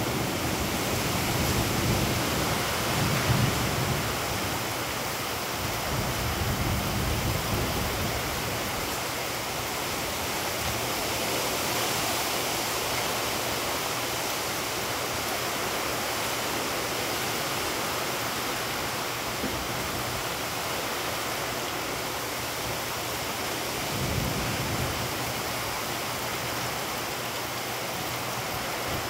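Heavy rain pouring steadily onto pavement and puddles, a dense even hiss, with low thunder rumbling in the first few seconds and again briefly about 24 seconds in.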